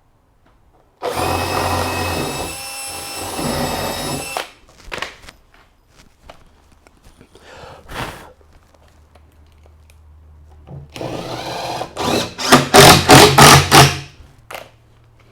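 Power drill drilling and screwing through one timber stair string into the edge of another: a steady run of about three and a half seconds, then near the end a second run that rises and goes on in short loud pulses as the screw drives home.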